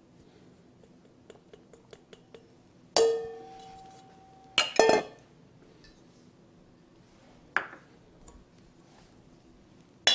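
Stainless steel mixing bowls clanking: a clang about three seconds in that rings for about a second, a quick double knock a second and a half later, and single clanks later on and near the end. Faint light ticks come before the first clang.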